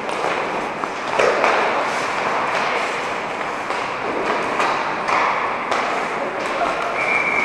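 Ice hockey play on a rink: skate blades scraping the ice and sticks clacking against pucks, a steady wash of scraping with repeated sharp taps and knocks. A brief steady high tone near the end.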